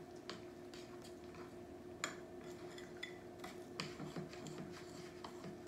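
A utensil clinking and scraping against a glass mixing bowl while stirring thick cornbread batter, with a few scattered sharp clicks, over a faint steady hum.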